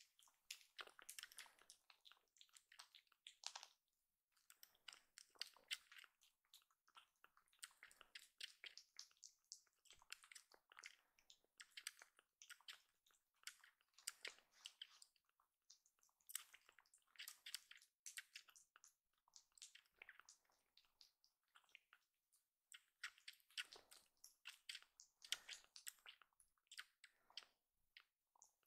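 A kitten suckling at a small nursing bottle's teat: faint, rapid wet smacking and clicking of tongue and mouth, in runs broken by short pauses.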